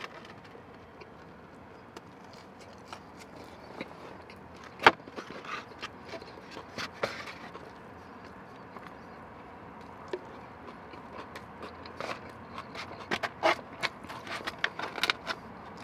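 Close-up eating sounds: chewing and mouth clicks, with a plastic fork scraping and tapping in a small coleslaw cup and a foam takeout box. The sharp clicks come irregularly, one strong one about five seconds in and a quick run of them near the end.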